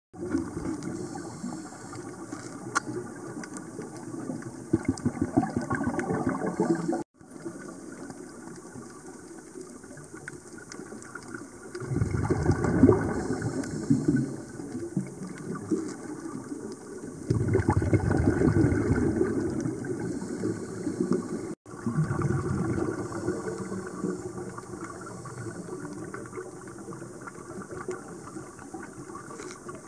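Scuba diver's regulator heard underwater: several long bursts of exhaled bubbles a few seconds apart, over a steady rushing hiss.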